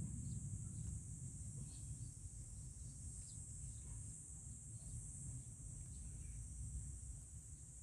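Steady high-pitched drone of an insect chorus, over a low background rumble, with a few faint scattered ticks.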